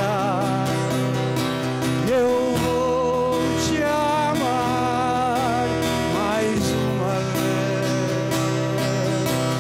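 Acoustic guitar playing a song, with a man singing long, wavering held notes over it.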